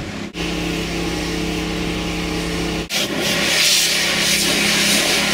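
A steady motor hum for the first few seconds. From about three seconds in, a pressure-washer jet hisses as it sprays water against a car window, heard from inside the car, with the hum still underneath.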